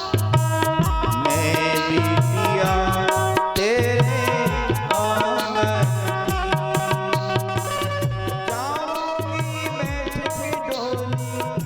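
Indian devotional song music, an instrumental passage: held, gliding melody lines over a steady hand-drum rhythm.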